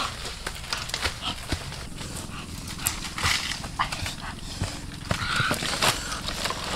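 Dry sticks and twigs crackling and snapping, with brush rustling, as an armful of firewood is pulled from the undergrowth, carried and set down on the ground. The sound is a string of short irregular cracks, with louder rustling bursts about three seconds in and again near the end.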